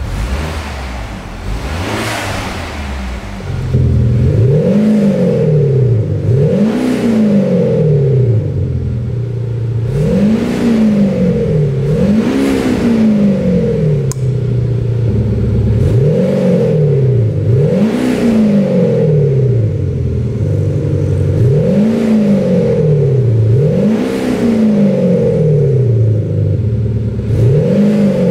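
BMW 428i's turbocharged four-cylinder engine, with a Kufatec Sound Booster Twin adding a synthesized engine note, idling and then revved repeatedly from about four seconds in. Each blip rises and falls in pitch, roughly one every two seconds.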